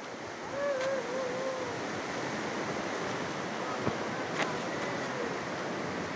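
Fast river current rushing over rocks and rapids: a steady wash of water noise. A faint wavering pitched call comes through it twice, and there are a few faint clicks.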